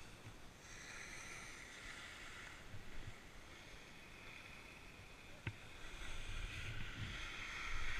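Skis carving on packed snow: a scraping hiss that swells twice, with each turn, with a sharp click about five and a half seconds in. Wind rumbles on the camera microphone near the end.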